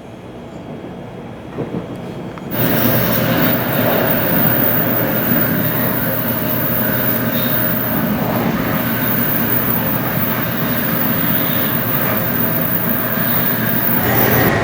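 Tokaido Shinkansen N700A train running along the line, a steady rumble of rolling noise. About two and a half seconds in it turns abruptly much louder and hissier, and stays steady.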